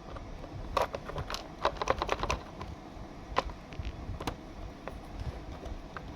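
Light, sharp clicks and taps of small hard objects being handled: a quick run of them about a second in, then single clicks a few seconds apart, over a low rumble.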